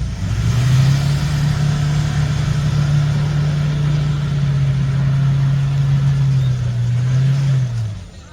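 Off-road vehicle's engine revving up and held at steady high revs under load for about seven seconds, then dropping back near the end.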